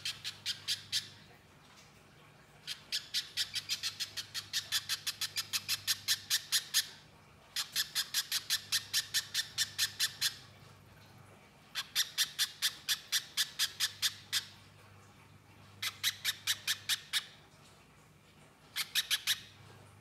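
Little spiderhunter calling in runs of rapid, sharp repeated notes, about seven a second. The runs last one to four seconds and break off with short pauses between them.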